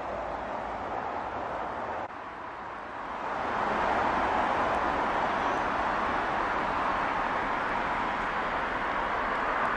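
Steam locomotive working a passenger train, a steady rush of exhaust and running noise that grows louder from about three seconds in.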